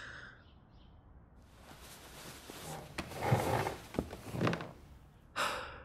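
Rustling and shuffling with a couple of small clicks or knocks, then a short breathy sigh near the end.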